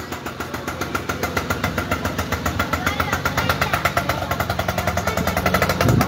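A small engine running steadily with a rapid, even pulse.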